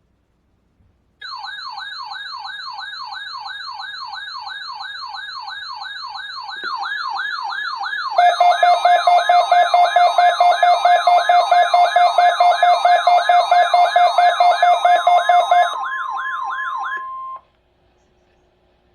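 Weather-alert alarm: an electronic siren tone sweeping rapidly up and down about three times a second. About eight seconds in, a steady tone near 1 kHz, the NOAA Weather Radio warning alarm tone, joins it along with a loud beeping about four times a second. Everything stops abruptly about seventeen seconds in.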